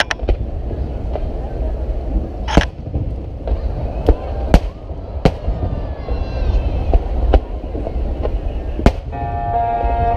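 Aerial fireworks shells bursting: sharp bangs every second or so over a continuous low rumble of the display. Music starts about a second before the end.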